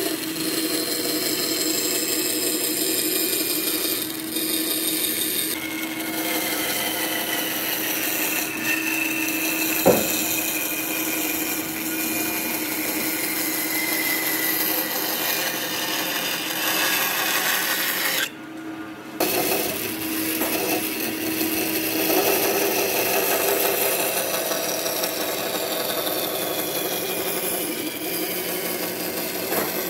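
Band saw running and cutting a curve through a thick softwood block, a steady saw noise with a sharp tick about a third of the way in and a brief drop-out about two-thirds through.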